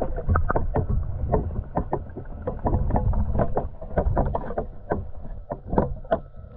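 Muffled underwater water sloshing and a rapid, irregular run of knocks and clunks picked up by a GoPro just below the lake surface as the feeder rig sways in the water.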